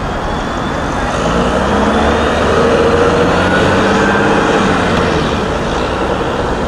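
Road traffic on a city street: a vehicle passing, its engine and tyre noise swelling about a second and a half in and fading again after a few seconds, over a steady traffic rumble.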